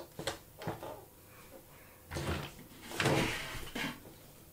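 Plastic parts of a Transformers action figure being handled: a few short clicks and knocks, then two longer rubbing, shuffling sounds about two and three seconds in.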